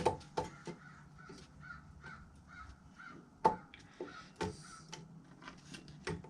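Workshop handling noise: scattered clicks and knocks as a 3D print is worked against a hot-wire cutter, with one sharp knock about three and a half seconds in. In between comes a run of short, repeated harsh squawks.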